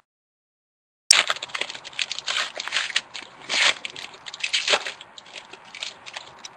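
Foil wrapper of a 2011 Certified football card pack being torn open and crinkled by hand, a dense crackling with many small snaps and a few louder swells. It starts about a second in.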